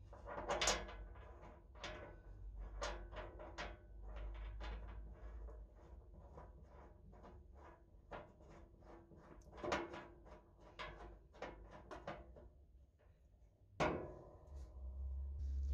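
Irregular small metal clicks and clinks, some ringing briefly, as a washer and nut are fitted by hand onto a bolt in the slot of a Morso mitre guillotine's frame, with a sharper knock near the end.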